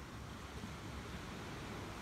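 Small waves washing on a sandy beach, with steady wind and a low rumble of wind on the microphone.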